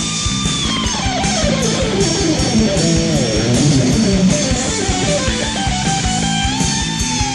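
Melodic hard-rock instrumental passage: an electric lead guitar runs down in pitch over a couple of seconds and then climbs back up, over driving drums and bass, with no singing.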